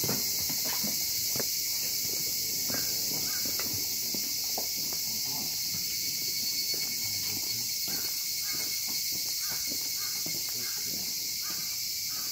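A steady, high-pitched chorus of insects that does not let up, with scattered footsteps beneath it.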